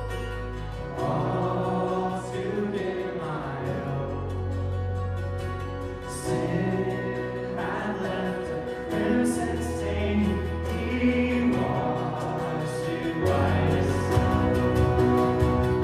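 Worship band performing a hymn: several voices singing together over acoustic guitars, mandolin, bass guitar and keyboard, with sustained deep bass notes.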